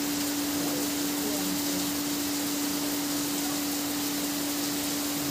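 Steady rain falling, an even hiss, with a steady low hum underneath.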